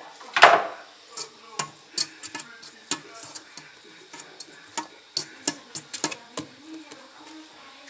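A hand working brioche dough in a stainless steel stand-mixer bowl: irregular light clicks and taps against the metal, with one louder knock about half a second in.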